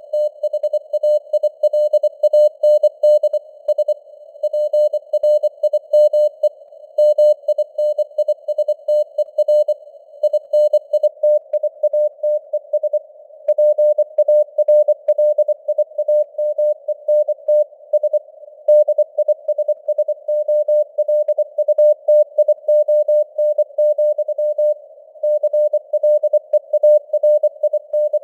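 Morse code (CW) sent at 24 words per minute as a single keyed beep tone in rapid dots and dashes, spelling out news headlines. The tone sits in a narrow band of simulated radio receiver hiss.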